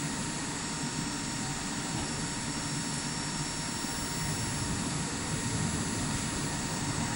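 Skånetrafiken Pågatåg electric train standing at an underground platform, its ventilation and onboard equipment giving a steady whooshing hum with a faint constant high tone, echoing in the station.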